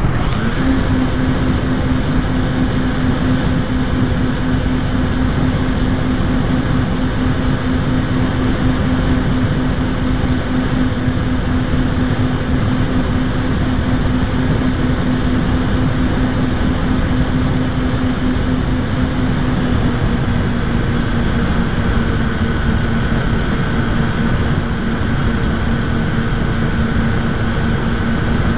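Small RC airplane's electric motor and propeller running at a steady cruise throttle, heard from the onboard camera with wind rush over the airframe and a thin, steady high whine alongside. The motor's pitch drops slightly about two-thirds of the way through.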